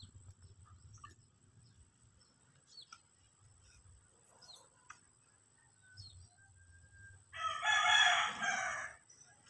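A rooster crows once, loudly, about seven seconds in, lasting under two seconds. Before it there are a few faint short bird chirps, and a thin steady high whine runs underneath.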